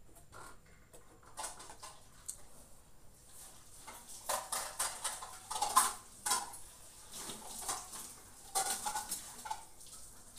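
A metal utensil scraping and clinking against a wok in quick irregular strokes, sparse at first and busiest from about four seconds in, with one sharp knock near the middle.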